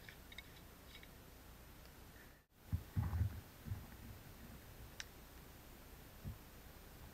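A few faint light clicks as the cap of a bottle is twisted, then, after a brief dropout, low thuds and rustling of a person crouching and handling the bottle at a fire lay, loudest just after the dropout, with one sharp click about five seconds in.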